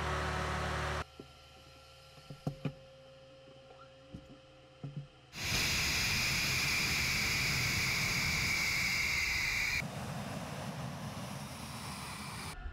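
MiG-31 jet on the ground with its twin turbofan engines running: a loud steady rush with a high whine that comes in about five seconds in and eases to a lower steady noise near ten seconds. Before that, a loud low rumble cuts off after about a second, followed by a quiet stretch with a few clicks and knocks.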